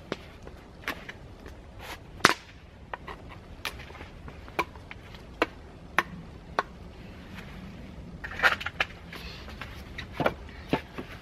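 Irregular sharp wooden knocks and clacks as sticks of wood are handled and knocked against each other and the table frame, with a quick cluster of knocks about eight and a half seconds in.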